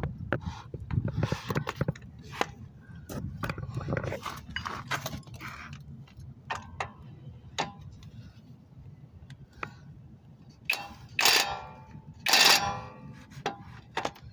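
Scattered metallic clicks and clinks of tools being handled, then near the end two short bursts of a cordless impact wrench hammering at a suspension nut to loosen it.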